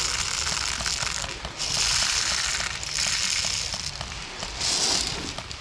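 Rustling, crackling noise that comes and goes in surges of about a second each, with faint rapid ticks underneath.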